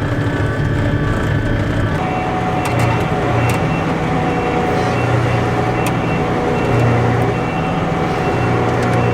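Heavy farm machine's diesel engine running steadily as it drives down the road, with a constant low drone and a shift in its tone about two seconds in.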